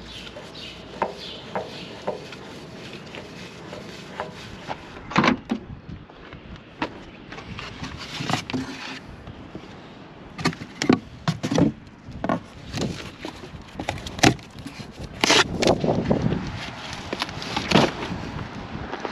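Cardboard cases and plastic oil jugs being handled and set down: a run of irregular knocks, thumps and cardboard scuffs. It starts with a few light clicks and gets busier and louder after about five seconds.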